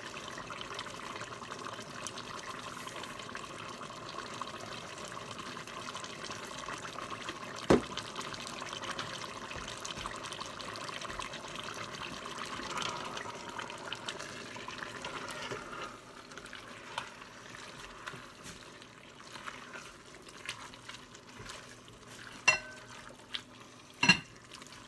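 Ground beef and sausage sizzling as they brown in an enamel-lined cast iron pot, being stirred and broken up with a hamburger chopper. The sizzle runs steadily, then drops quieter about two thirds of the way through, and the chopper knocks sharply against the pot about eight seconds in and twice near the end.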